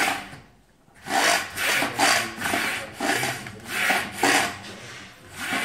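Sliding bar of a pleated mosquito net screen pushed back and forth along its frame track, making a quick run of rubbing, scraping strokes as the folded mesh opens and closes.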